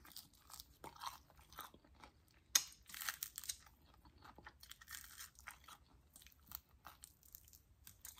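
Close-up eating of crispy fried chicken: a run of short, sharp crunches and chewing, the loudest crunch about two and a half seconds in.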